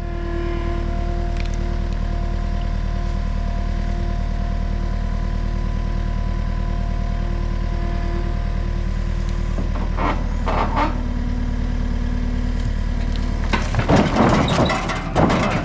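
Loader engine running steadily while a log is set onto the sawmill. There are brief clatters about ten seconds in and a louder stretch of knocking and scraping near the end.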